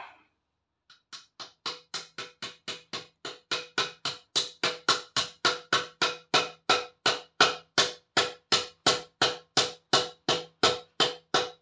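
Rapid, even hammer taps, about four a second, on a drift held against a motorcycle swing arm pivot, driving a greased pivot cap or bushing home to seat it. The taps start soft about a second in and grow harder, each with a short metallic ring.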